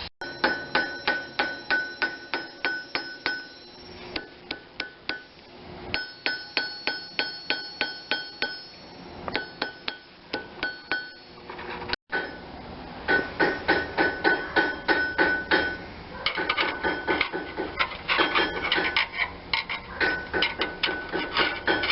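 Small hammer tapping rapidly on metal, about four blows a second, each blow ringing briefly. The tapping stops for a moment about halfway through, then resumes louder and faster.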